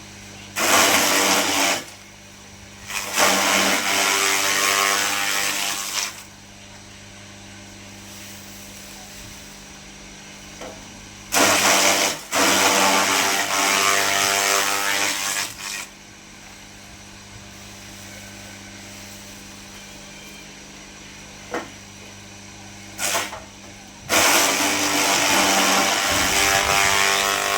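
Small chaff cutter running steadily with a low hum, broken by several loud bursts lasting a second to a few seconds each, as fodder is fed in and chopped.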